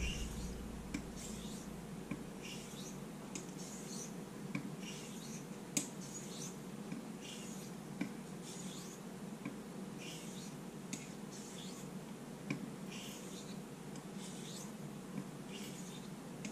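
Straight razor drawn edge-trailing across the 1000-grit side of a King 1000/6000 combination whetstone: faint, steady scraping strokes a little more than one a second, with light ticks between them. This is stone stropping, which lines up the burr on the edge.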